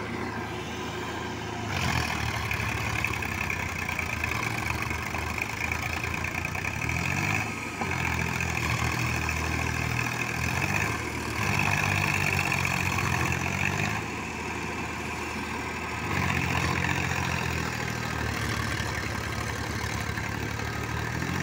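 Diesel tractor engines labouring in a flooded paddy field, the engine note rising and falling several times as they pull through the mud.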